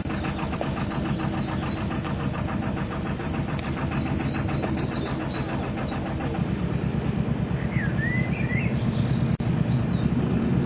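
Narrowboat's diesel engine chugging with a steady, even beat, getting louder about six seconds in.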